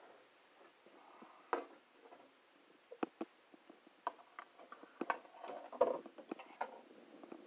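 Metal fork clicking and scraping irregularly against a cast iron skillet while stirring frying corn kernels, busiest in the second half.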